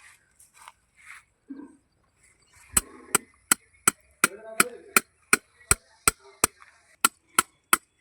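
Hammer striking steadily and evenly, nearly three blows a second, starting about three seconds in.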